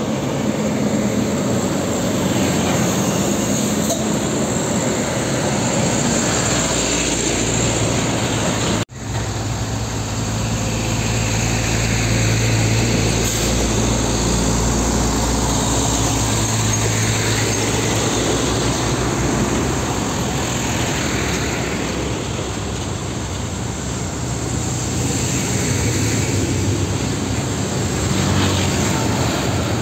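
Heavily loaded diesel trucks climbing a grade one after another, engines running steadily under load as they pass close by. The sound drops out for an instant about nine seconds in.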